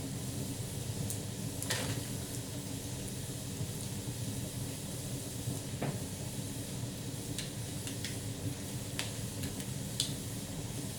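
Wood fire burning in a fireplace: a steady low rush of flames with several sharp crackles and pops from the burning logs scattered through it.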